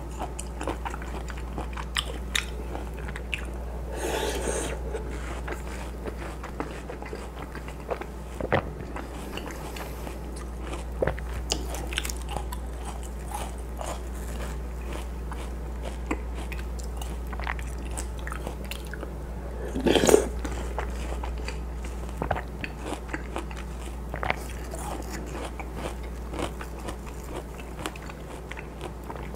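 Close-miked biting and chewing of watermelon chunks, with many small crisp crunches spread irregularly through the chewing and one louder burst about twenty seconds in.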